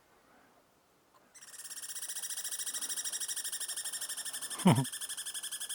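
Small squirrel giving a long, rapid, high-pitched chattering trill that starts abruptly about a second and a half in and keeps going. A short loud sound sweeping steeply down in pitch cuts across it near the end.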